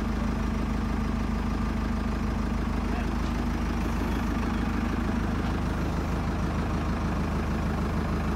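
Tractor engine idling steadily while it holds a truck cab on its lifting chains.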